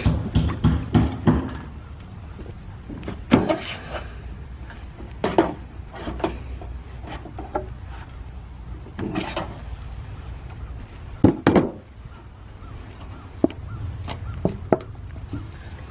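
Irregular knocks and short scraping or rubbing noises from work handling, with a quick run of knocks at the start and two sharp knocks close together about two-thirds of the way through.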